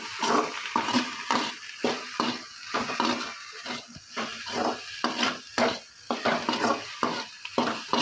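Metal spatula scraping and stirring scrambled egg, onion and tomato around a metal kadai in quick repeated strokes, about two to three a second, with a frying sizzle underneath.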